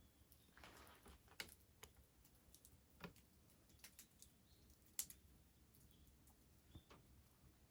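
Wood fire crackling faintly, with sparse irregular pops and snaps, the sharpest about five seconds in.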